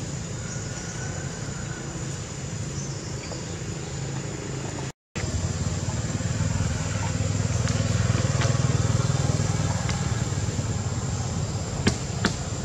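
Steady low outdoor background rumble with hiss, cutting out for an instant about five seconds in and coming back a little louder, with two short sharp clicks near the end.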